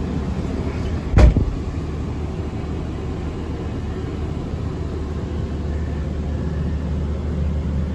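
The 2016 Freightliner M2's Cummins ISB 6.7-litre diesel idling steadily, heard from inside the cab, with one loud thump about a second in.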